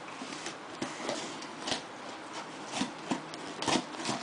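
A taped cardboard shipping box being opened by hand: scraping and rustling of the cardboard and tape, with several sharp knocks and clicks, the loudest shortly before the end.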